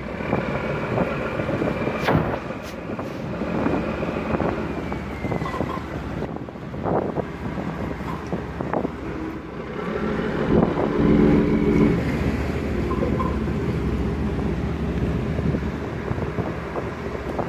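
Boat engines running under load in a harbour, with propeller wash churning the water and wind buffeting the microphone. The engine note grows louder about ten seconds in, and a few sharp knocks are heard early on.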